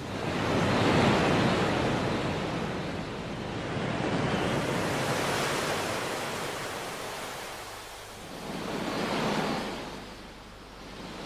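Sea surf: waves breaking and washing up the shore. The noise swells and fades three times, strongest about a second in, again around four to six seconds, and once more near the end.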